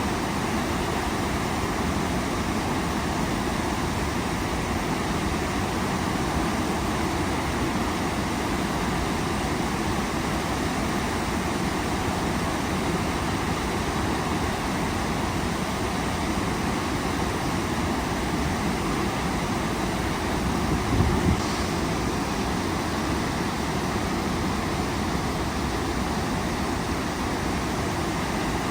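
Waterfall rushing steadily, a constant even noise of falling water. About three-quarters of the way through there is one brief low thump.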